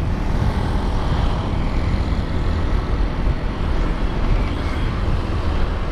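Steady rush of wind and road noise on a moving motorcycle in traffic, heaviest in the low end, with no single event standing out.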